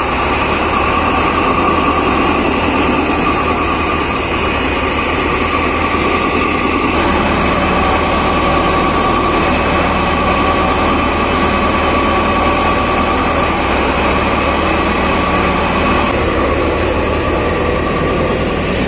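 ShaktiFarm paddy thresher running under load as paddy is fed in, its drum and fans driven by a Sonalika DI 42 RX tractor: a steady, loud mechanical drone with a steady whine running through it.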